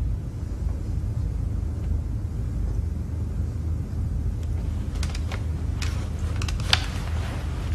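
A steady low rumble of room ambience, with a few faint clicks and rustles of movement in the second half, one sharper click near the end.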